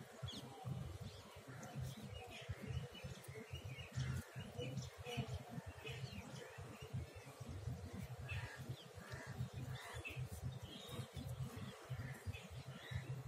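Faint, scattered bird chirps over a low, unsteady rumble of background noise.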